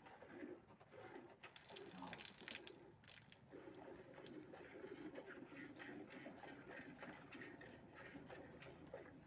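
Faint cooing of pigeons, with short hissing squirts of milk into a steel pail as a cow is milked by hand, most noticeable about two to three seconds in.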